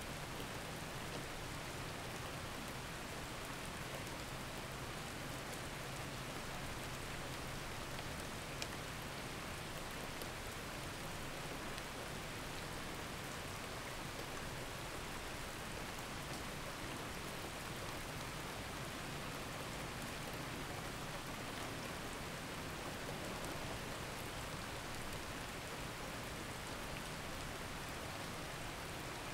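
Steady rain falling on a surface, an even hiss that does not change, with one sharper tick a little over eight seconds in.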